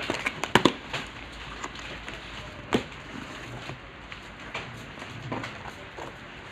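Small objects handled close by: a quick cluster of sharp clicks and knocks about half a second in, a single louder click near three seconds, and fainter taps in between over low steady background noise.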